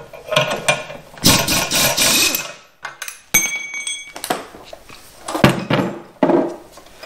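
Pneumatic impact wrench run for about a second to back off the screw of a ball joint press, then metal clanks and a ringing clink as the press and tools are handled and set down, with a sharp knock near the end.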